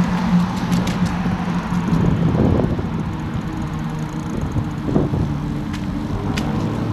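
Riding noise on a bicycle-mounted action camera: wind on the microphone and tyre noise, with a steady low hum and a few faint clicks and rattles.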